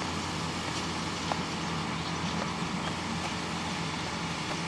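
An engine running steadily at a constant speed, with a faint tick or two over it.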